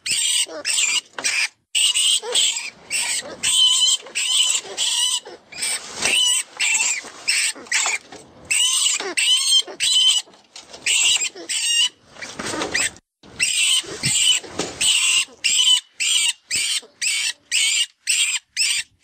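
FoxPro 'Vermin Pest Control' predator call: a recorded rat distress call of rapid high-pitched squeals, two or three a second, with one lower, rougher squeal about two-thirds of the way through. It imitates a rodent in distress and is used to call in foxes.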